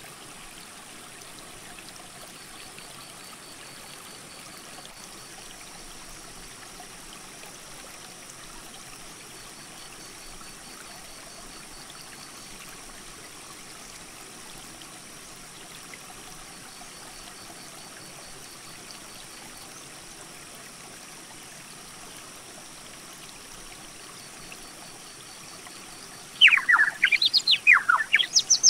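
Steady rush of a mountain creek running over rocks. Near the end a bird breaks in with a loud song of quick whistles sweeping up and down.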